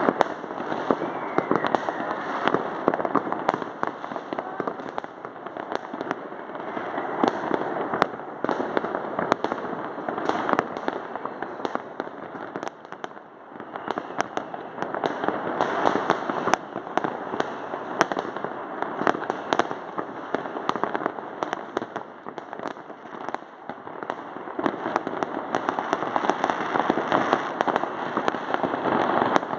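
Many fireworks and firecrackers going off at once all over a town: a continuous crackle and rumble with very many sharp bangs, swelling and easing every few seconds.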